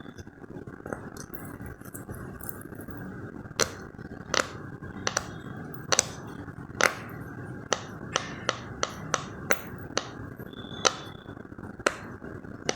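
A series of about fifteen sharp pops at irregular intervals, coming in a quicker run in the middle, a couple of them followed by a brief high ring.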